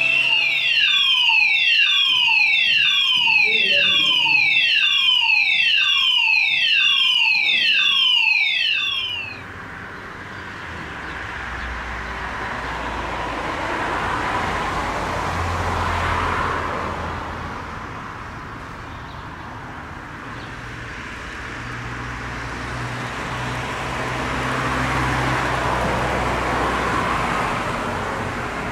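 A school's electronic fire alarm sounder repeats a falling evacuation tone about once a second over a steady high beep. It cuts off about nine seconds in. After that a broad rushing noise with a low hum swells and fades twice.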